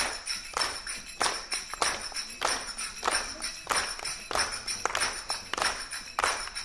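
Zills (finger cymbals) played by several players in a steady rhythm: a loud ringing strike about every two-thirds of a second, with lighter strikes between.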